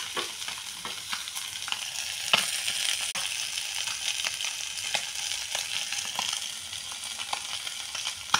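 Small whole fish shallow-frying in hot oil in a pan: a steady sizzle with sharp pops scattered through it, the loudest about two and a half seconds in.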